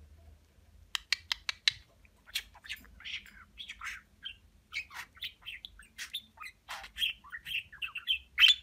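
Male budgerigar chattering: about a second in, a quick run of clicks, then a busy warble of short chirps and squawks, with the loudest squawk near the end.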